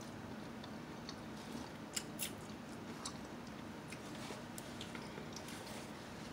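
Quiet chewing of a mouthful of sub sandwich, with scattered small sharp clicks and crackles, the loudest two about 2 s in. Light rustling of a paper napkin being handled comes near the end.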